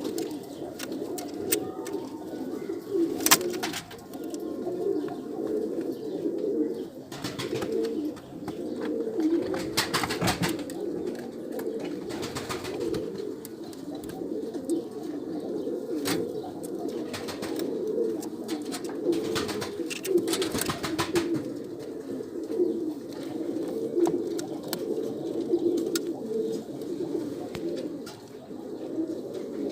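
Domestic pigeons cooing continuously, several overlapping into a steady low warble, with a few brief sharp clicks or knocks.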